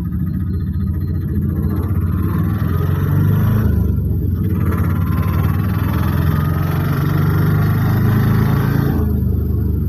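Auto-rickshaw engine running under way, heard from inside the open cab as a loud low rumble. Its note rises a couple of seconds in, dips briefly about four seconds in, picks up again, then eases near the end.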